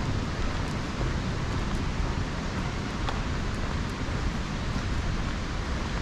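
Wind buffeting the microphone: a steady rushing noise, heaviest and most uneven in the low end.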